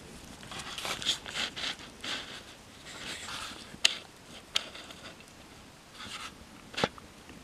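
Paper and cardboard burning in a metal fire drum, crackling irregularly, with three sharp pops in the second half, the loudest near the end.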